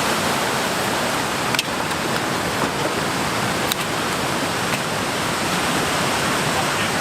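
Steady rushing roar of a nearby waterfall running in high spring flood water, with a few sharp knocks about a second and a half, three and a half, and four and a half seconds in.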